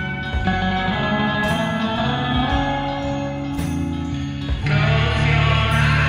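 Rock band music: sustained electric guitar over bass and drums, with cymbal crashes about every two seconds. About three-quarters of the way in, the band gets fuller and louder.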